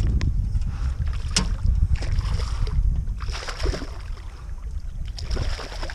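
A hooked redfish splashing and thrashing at the surface beside an aluminium flat boat, over a steady low rumble of wind on the microphone. There is a sharp knock about a second and a half in.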